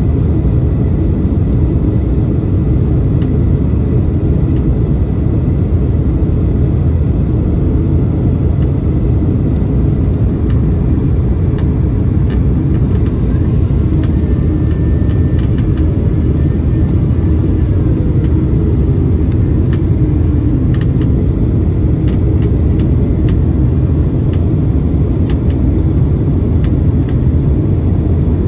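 Steady low rumble of a Boeing 767-300ER's engines and airflow heard inside the passenger cabin in flight, with a few faint clicks.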